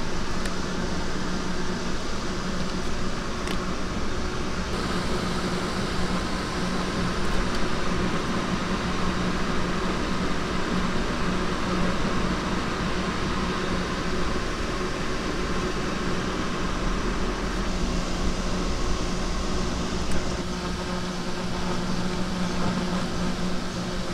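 Cotton candy machine running, its spinning head giving a steady motor hum over a constant whir.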